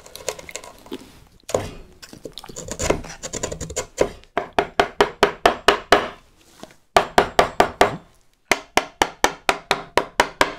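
Wood chisel paring the wall of a hardwood mortise, guided against an angled block. It goes in runs of short, sharp cutting strokes, about four to five a second, with brief pauses between the runs.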